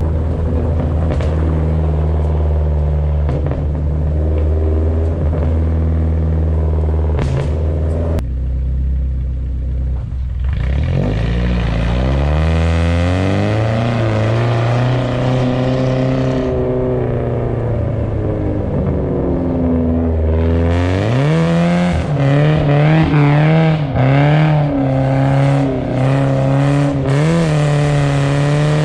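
BMW car engine running at a steady speed, then revving up about ten seconds in and holding, easing off at about twenty seconds, then revving up and down repeatedly while the car drifts on ice.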